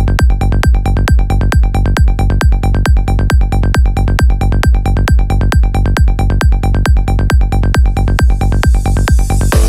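Electronic dance music with a steady, fast kick-drum beat and sustained bass, a rising noise sweep building in the highs near the end.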